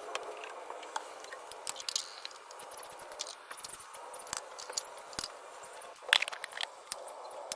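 Scattered light clicks and taps, with a denser cluster about six seconds in.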